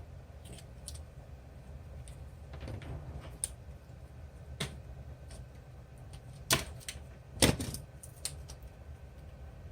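Scattered clicks and knocks of a power cord and plastic packaging being handled, with a brief rustle, and two louder knocks about a second apart in the second half.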